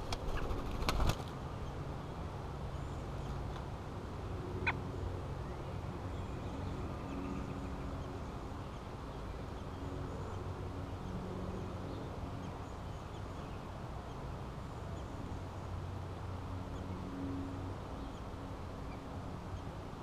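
A steady low hum, with a cluster of sharp clicks about a second in and one more short click about five seconds in.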